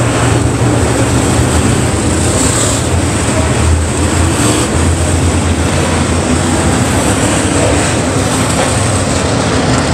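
A pack of dirt late model race cars running at speed around the oval, their V8 engines blending into one loud, steady drone.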